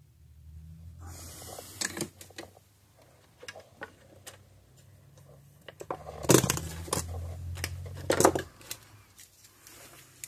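Hand tools handled on a wooden workbench: wire strippers clicking as they work a wire, and tools clacked down, with a short hiss about a second in and a couple of louder knocks past the middle, over a faint steady hum.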